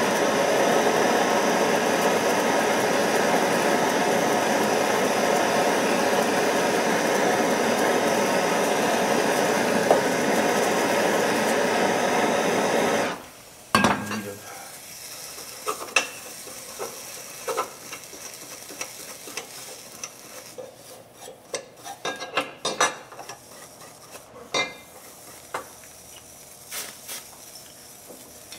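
Handheld gas torch burning with a loud, steady hiss as it heats a steel pistol frame to tin it with silver solder. The torch cuts off sharply about 13 seconds in, followed by scattered light clicks and scrapes of metal being handled.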